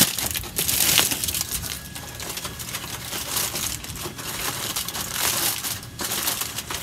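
Aluminium foil crinkling and crackling as it is pressed and crimped by hand over a pan of smoked pork, wrapping the meat partway through the cook. Loudest at the start and again about a second in.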